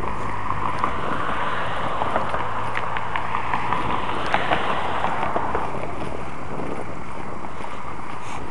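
Wind buffeting the microphone over a steady rushing noise, with a low engine hum underneath that fades out about halfway through.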